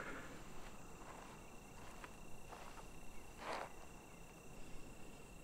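Faint evening outdoor ambience: a steady high-pitched cricket trill, with a few soft rustles.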